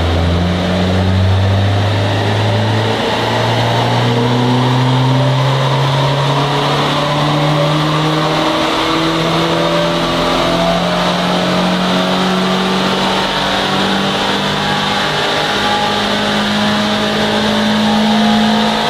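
Fiat Grande Punto 1.2 8V four-cylinder petrol engine accelerating under load on a chassis dynamometer during a power run. It revs in one gear from about 2,400 to about 6,400 rpm, its pitch rising steadily.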